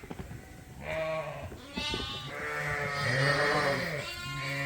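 Several sheep in the Suffolk group bleating, four or five calls in a row, some overlapping, with one longer, louder bleat in the middle.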